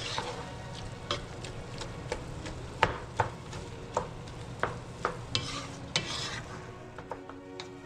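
Ground chicken frying with chopped onions and garlic, sizzling steadily, while a utensil stirs and breaks up the meat, knocking and scraping against the pot every second or so.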